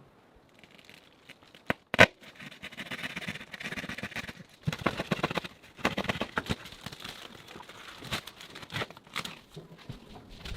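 Handling noises: irregular rustling and crinkling with scattered sharp clicks and knocks, the loudest knock about two seconds in.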